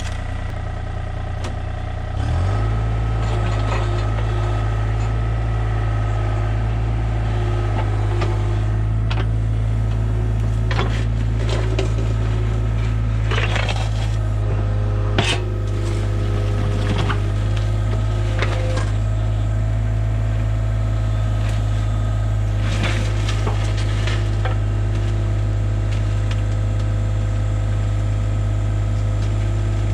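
Hitachi 35U mini excavator's diesel engine running, throttled up about two seconds in and then held steady under load. Scattered cracks, knocks and scraping come through it as the machine pulls a mass of tree roots out of a clogged drain pipe.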